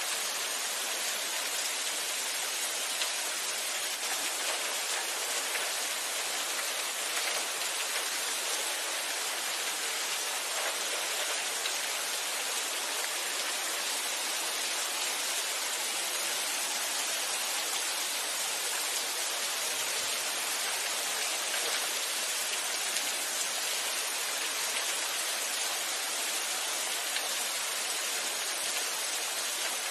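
Steady rain falling, an even hiss of many drops with no change in strength.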